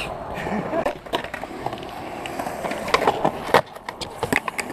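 Skateboard wheels rolling on concrete, broken by sharp clacks of the board striking, the loudest about three and a half seconds in, then a quick run of clattering hits near the end.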